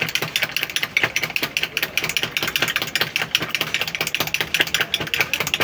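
A spoon stirred fast in a glass of tea, clinking against the glass in a rapid, even run of clicks.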